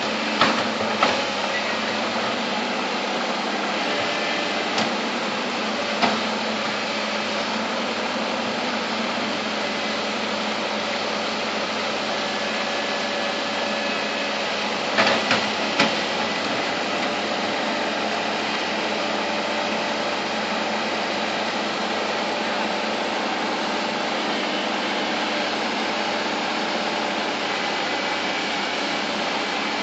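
Bulldozer's diesel engine running steadily, with a few sharp knocks near the start and a quick cluster of them about halfway through.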